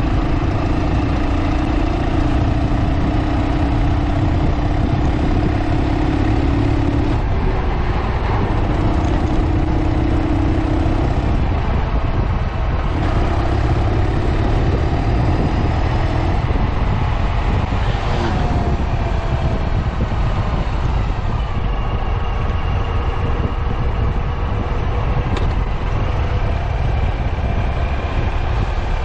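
Ural sidecar motorcycle's air-cooled flat-twin engine running while under way, under a heavy low rumble of wind and road noise. The engine note breaks off and comes back several times in the first half, and a brief falling tone passes about eighteen seconds in.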